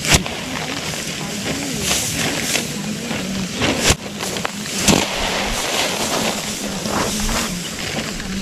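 Rice sheaves threshed by hand, the bundles beaten against a stone: several sharp thwacks, one right at the start and two about a second apart past the middle, over the rustle of dry straw and falling grain. A faint wavering tone runs underneath.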